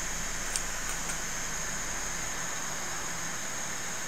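Steady background hiss with a low hum, broken only by two faint clicks about half a second and a second in.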